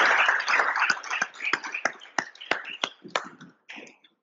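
Audience applause dying away: the dense clapping thins into a few scattered single claps and stops near the end.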